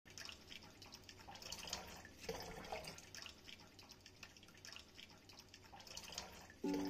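Thin stream of tap water running into a stainless steel bowl in a sink, with faint, irregular splashing and dripping. Music starts just before the end.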